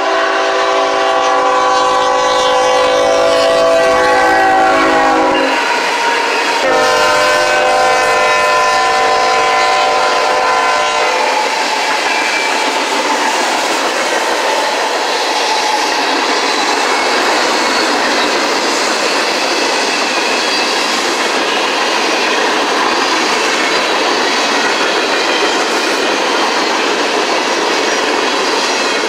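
CSX GE ET44AH diesel locomotive sounding its multi-note air horn as it passes, in two long blasts of about five and four seconds with a short break between. Then comes the steady rolling noise and wheel clatter of the manifest freight's cars going by.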